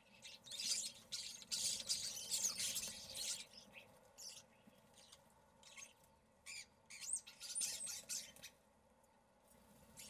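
Common starlings calling: a dense run of harsh squawks and chatter for the first few seconds, then scattered short calls and a couple of rising-and-falling whistles near the end.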